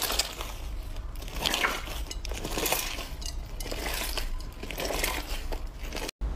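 Fluffy blue slime squishing as two hands squeeze and knead it in a glass bowl of clear purple slime, in repeated bursts about once or twice a second. The sound cuts off abruptly near the end.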